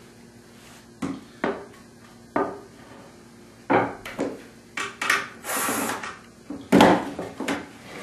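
Pine chair parts being handled and set down: a string of wooden knocks and clunks, the loudest near the end, with a short hiss about halfway through.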